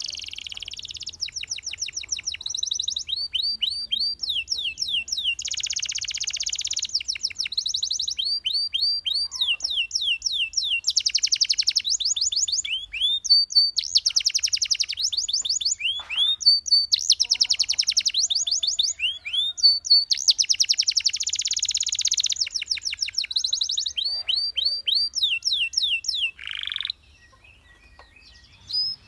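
Canary singing a long unbroken song: fast trills of repeated notes, many sweeping downward, alternating with dense buzzy rolls. It stops shortly before the end.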